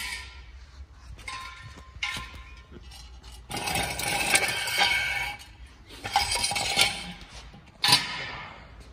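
Steel jack stand being handled and shifted on a tiled floor: metal clinks and scrapes in several bursts, with one sharp clink near the end.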